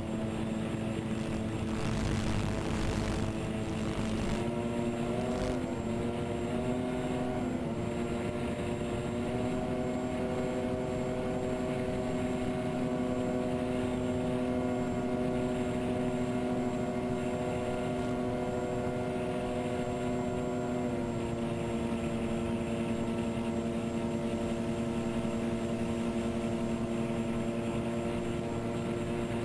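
Twin electric motors and propellers of a TwinStar RC plane humming steadily, heard from the camera on board, with wind rushing over the airframe. About two seconds in comes a few seconds of louder wind rush. The motor pitch steps up and wavers with throttle changes, then eases down a little about two-thirds of the way through.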